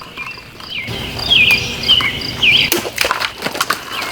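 Fully serrated Cold Steel Talwar XL folding knife slashing through bottles: a cluster of sharp cutting strikes about three seconds in, after a rushing noise. Birds chirp throughout.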